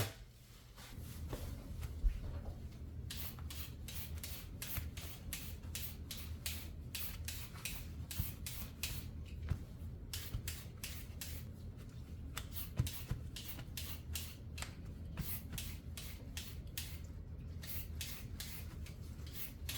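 Spatula strokes scraping and turning a vegetable filling in a pan as it is slowly stir-fried, repeated about once or twice a second over a low steady hum.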